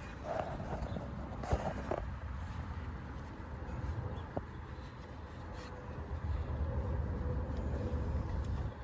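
Low rumble of wind on the microphone, with a few short clicks and scrapes from hand tools being worked near the start and once more about halfway.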